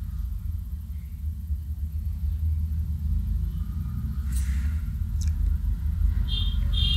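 Steady low rumble, with a few brief faint hisses in the second half.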